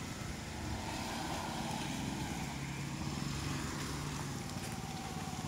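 Small motorcycle engine running steadily as the bike approaches, growing a little louder near the end, with light wind noise on the microphone.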